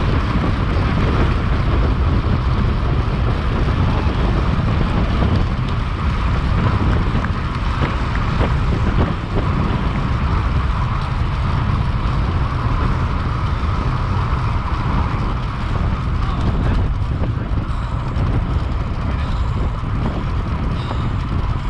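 Wind buffeting the microphone: a steady, heavy rumble with constant background noise and no distinct events.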